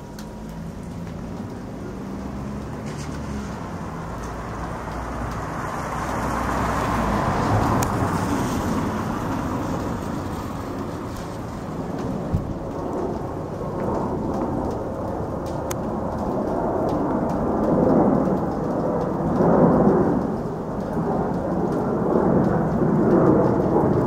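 Wind buffeting the camera's microphone: a low rumbling noise that rises and falls in gusts and grows stronger in the second half.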